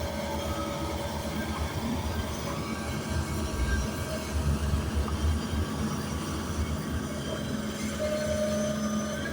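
Heavy construction machinery running, with a steady low rumble and a steady whine over it.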